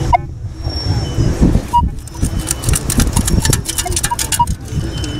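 Minelab Equinox 900 metal detector giving a few short, high target beeps over a steady low rumble, with a burst of rapid clicking and rattling in the middle.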